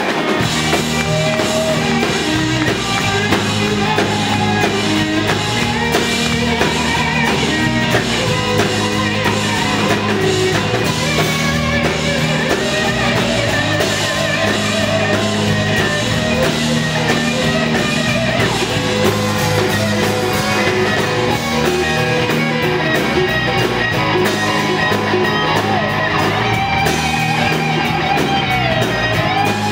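Live rock band playing: two electric guitars over an electric bass and a drum kit.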